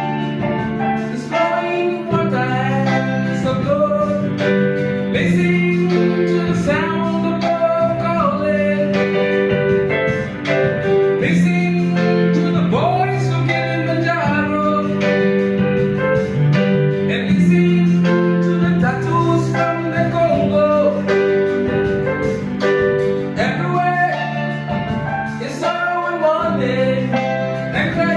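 A song: a voice singing a melody over instrumental accompaniment, with sustained low notes that change every second or two.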